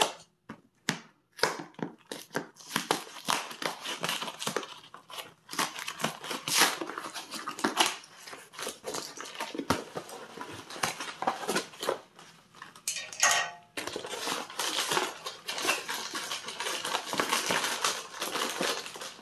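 Cardboard FedEx Express envelope being torn open by hand: paperboard ripping and crinkling in fits and starts, with short pauses between pulls.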